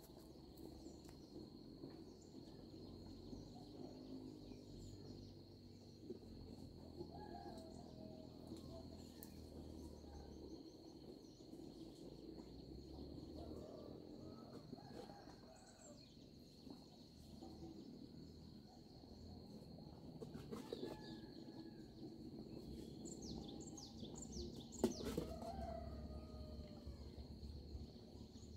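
Birds chirping and calling over a steady high-pitched insect drone, with one sharp knock near the end.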